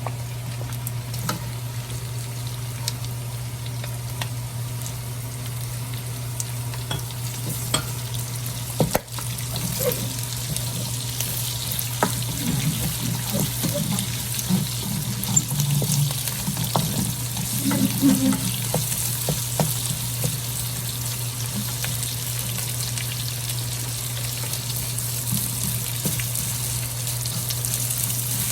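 Onions sizzling as they sauté in hot oil and rendered pork belly fat in a pan, with a spatula stirring and scraping against the pan now and then, most often in the middle stretch.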